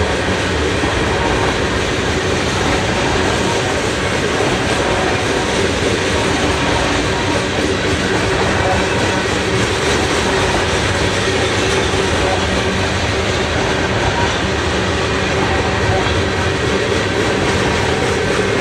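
Freight train rolling past: a steady, loud noise of steel wheels on rails, with a few faint steady tones above it.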